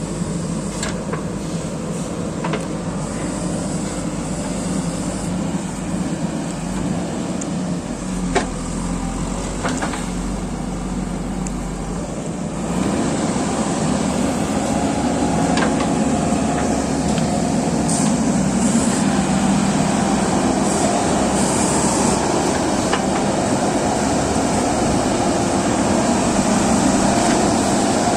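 JCB excavator's diesel engine running steadily, with a few light knocks, then growing louder about halfway through and staying at the higher level.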